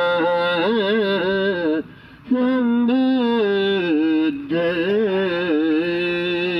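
Buddhist monks chanting: a slow, sung recitation in long held notes that waver slightly, with a brief pause about two seconds in.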